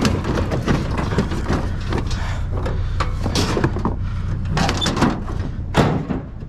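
Repeated knocks, clanks and rattles of scrap metal being handled, around a dishwasher motor, over the steady low hum of an idling vehicle engine.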